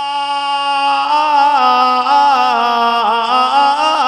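A male naat reciter sings without words. He holds one long note, then about a second in breaks into a wavering, ornamented melodic run.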